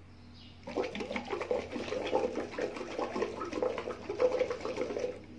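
Bubbling of air blown through a drinking straw into water in a plastic bottle, one long breath out as a breathing exercise. It starts about a second in and stops just before the end.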